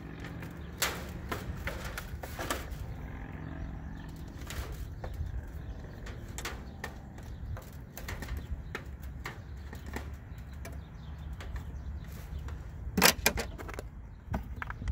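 Irregular clicks, taps and scrapes of plastic and metal as a screwdriver pushes the emblem's security clips into the back of a chrome plastic truck grille, with a louder clatter of knocks near the end, over a low steady hum.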